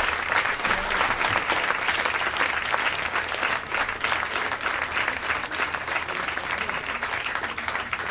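Audience applauding: dense, steady clapping from a live club crowd.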